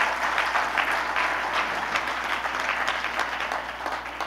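Audience applauding, many hands clapping at once, easing off near the end.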